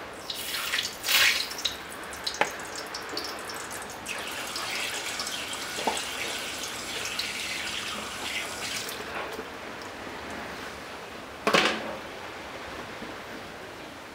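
Hot oil in an electric grill pan sizzling and crackling as a wet fish touches it, first in short hisses, then a steadier spitting crackle that fades. One loud, brief burst of noise comes about eleven seconds in.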